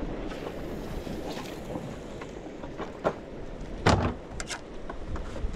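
Wind buffeting the microphone over the sea around a small fishing boat, with a sharp knock a little after three seconds and a louder thump about four seconds in.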